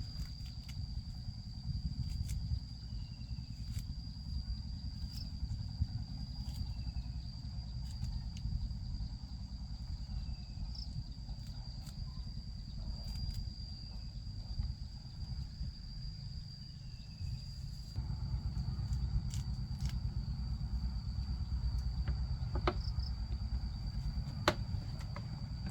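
A steady, unbroken high-pitched insect drone, with a low rumble of wind on the microphone underneath and a few sharp clicks.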